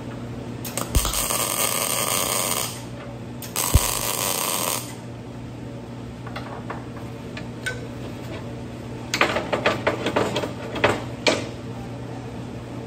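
Two short bursts of electric arc welding, each starting with a thud and crackling for a second or two: tack welds being laid along the seam of a thin steel plate. A little later comes a quick run of sharp metal clicks and taps, all over a steady low hum.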